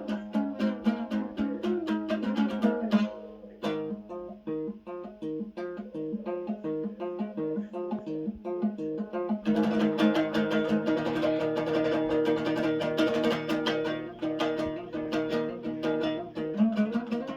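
Kazakh dombra playing a kui, with fast plucked and strummed notes. About three and a half seconds in it drops to a softer, sparser passage, then returns to fuller, louder strumming at about nine and a half seconds.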